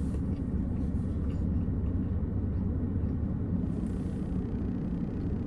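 Steady low rumble of a car heard from inside the cabin, with a few faint clicks in the first second or so.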